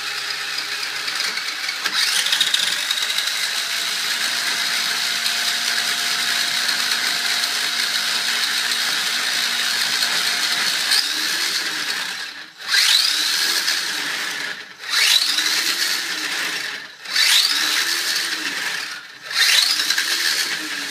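Electric drive motor and gears of a cheap hobby RC car, run through its speed controller, spinning with a steady whine. About twelve seconds in it cuts out and spins back up with a rising whine, four times about two seconds apart.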